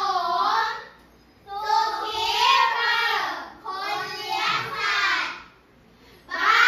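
A class of young children chanting English vocabulary words aloud in unison in a sing-song voice, in phrases broken by two short pauses.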